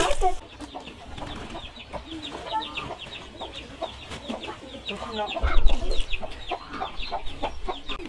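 Chickens clucking, with many short high peeps scattered throughout. Water splashing into a bucket cuts off just after the start, and there is a low thump about five and a half seconds in.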